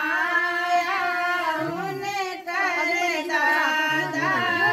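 Group of women singing a folk song together, holding long wavering notes, with a short break for breath about two and a half seconds in.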